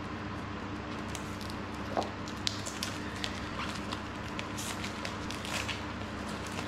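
Hands handling and turning over a small cardboard product box: scattered light taps, scrapes and rustles, the sharpest knock about two seconds in, over a steady low hum.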